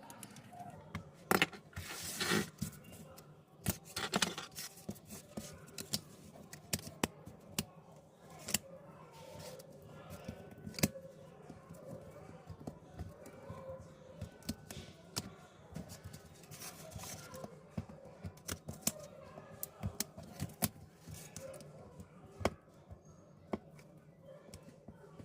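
Small hand tools clicking, tapping and scraping against a smartphone during a screen replacement. Sharp clicks come throughout, with a few longer scrapes about two and four seconds in and again in the middle.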